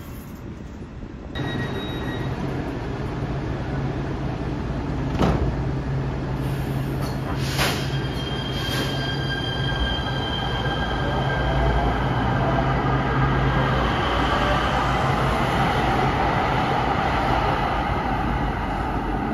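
LA Metro P3010 light-rail train moving through the station with a steady low hum and running noise. Its wheels squeal in high tones on the curved track, with two sharp knocks a few seconds in, and the sound grows louder toward the second half.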